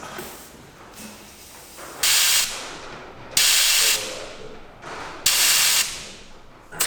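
Three short, loud bursts of hissing compressed air, each about half a second long and starting abruptly, spaced a second or two apart.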